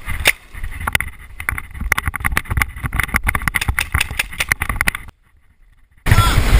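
Footfalls and the clicking and knocking of gear jolting on a body-worn camera as its wearer runs, over a low rumble of wind and handling noise. About five seconds in, the sound drops out for roughly a second, then comes back as loud, buffeting rumble.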